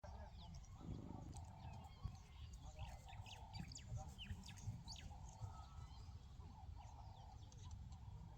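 Small birds chirping faintly, with many short, quick calls scattered throughout, over a low steady rumble.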